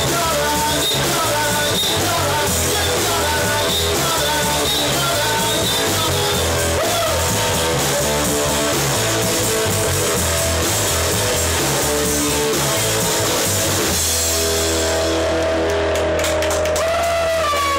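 Loud rock music with electric guitar, drum kit and some singing; about fourteen seconds in the band holds a sustained chord that rings on to the end.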